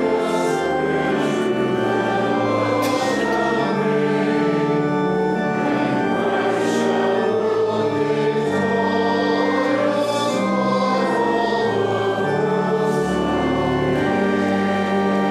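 A choir singing a hymn in slow, sustained chords over an instrumental accompaniment, with the voices moving together note by note.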